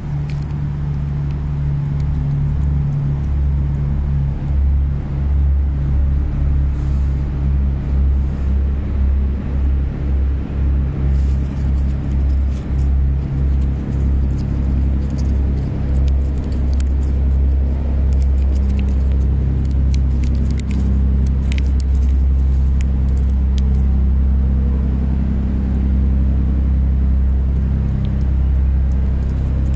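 Brown tabby cat purring loudly, right beside the microphone. The purr swells and fades about once a second with its breathing for the first half, then runs steady, with faint wet clicks as it licks a squeeze-tube treat.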